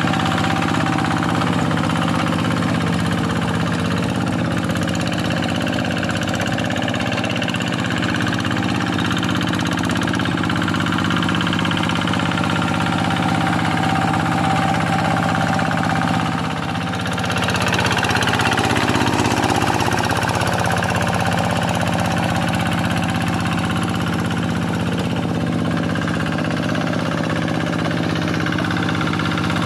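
Quick G1000 two-wheel hand tractor's Kubota single-cylinder diesel engine running steadily while ploughing a flooded rice field, with a brief dip in level about two-thirds of the way through.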